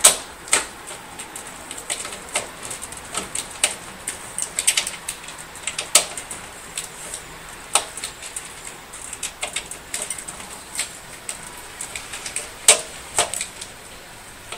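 Irregular metallic clicks and taps of a screwdriver and screws against a computer case as parts are screwed into place, with a few louder knocks scattered among lighter ticks.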